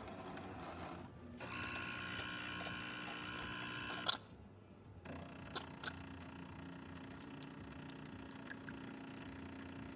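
Jura super-automatic espresso machine starting a shot: its built-in grinder runs for about three seconds, a few clicks follow as the brew unit moves, then the pump runs with a steady hum.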